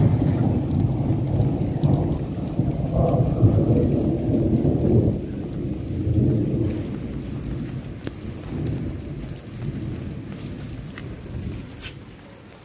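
Long roll of thunder: a low rumble that starts abruptly, stays strong for about five seconds, then slowly fades away.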